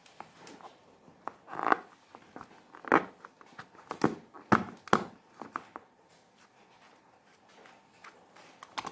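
Fingers gripping and rubbing a filled rubber balloon: a string of short, sharp rubbery squeaks and crackles, most of them between about two and five seconds in, then a few quieter ones.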